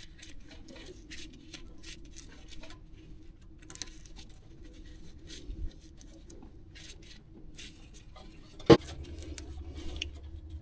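Scattered small clicks and scrapes of objects being handled, then one sharp knock near the end, after which a low steady hum starts.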